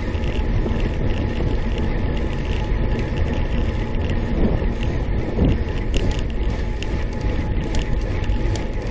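Road bicycle climbing on asphalt, heard from a handlebar-mounted camera: steady rumble of tyres on the road and vibration through the mount, with sharp clicks and rattles from the bike from about two-thirds of the way in.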